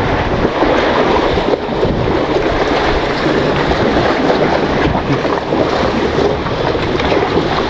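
Steady wind buffeting the microphone, with sea waves washing against the breakwater rocks.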